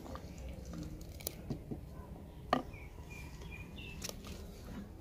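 Wooden spoon stirring soup in a clay pot, knocking sharply against the pot a few times, the loudest knock about halfway through. Small birds chirp briefly in the background.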